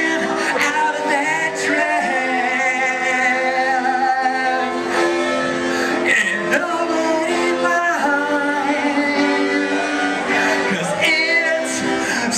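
A man singing along to his own piano accordion: held accordion chords under a wavering sung melody.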